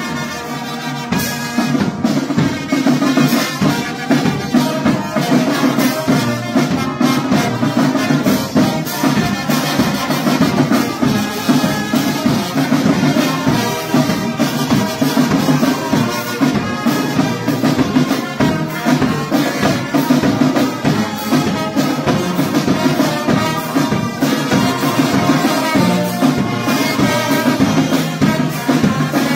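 Brass band playing, with brass instruments over a steady drum beat.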